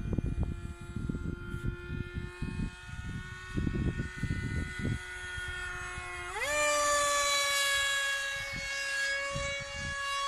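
Brushless electric motor and 7x5 propeller of a depron foam RC Su-37 model whining steadily in flight. About six seconds in the pitch rises sharply and the sound gets louder as the throttle goes up, then holds at the higher note. Gusts of wind on the microphone make low rumbles through the first half.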